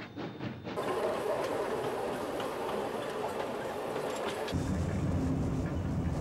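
Running noise from inside an open heritage train carriage: wheels rolling and clicking over the rail joints with a steady rush. About four and a half seconds in it changes to the low rumble of a car's cabin on the move.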